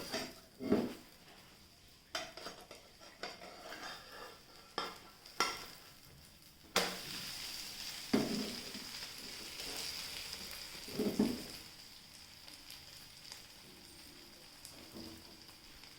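Chicken egg omelet frying gently in an oiled pan over a low flame: a faint steady sizzle, with a utensil scraping and knocking against the pan now and then, most often in the first half.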